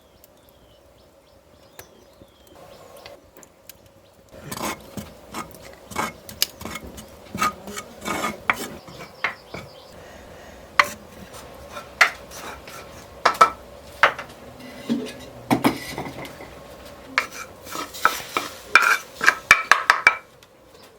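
Metal utensils clinking, knocking and scraping against pots and dishes, as in stirring or serving food, in irregular strokes for about fifteen seconds.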